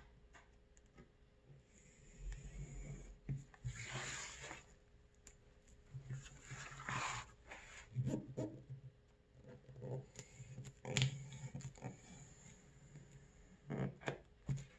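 Leather knife cutting by hand through crocodile hide along a paper template, in several short scraping strokes a few seconds apart.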